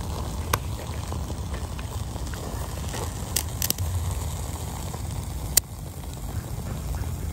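Fatwood shavings burning in a small metal stove: a steady low rushing with several sharp crackling pops, the loudest about five and a half seconds in.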